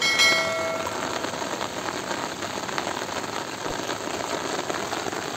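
Heavy rain falling on floodwater, a steady hiss of drops hitting the water surface. A short ringing chime sounds right at the start and fades within about a second.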